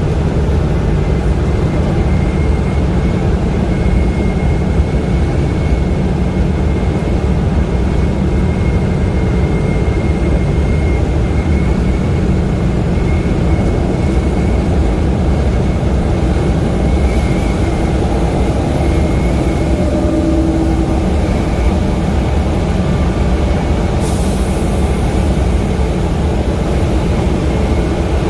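Steady road noise of a vehicle driving on a highway: a constant low rumble of engine and tyres, with a faint steady whine above it.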